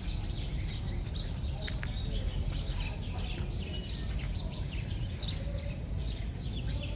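Small birds chirping, many short quick calls one after another, over a steady low rumble.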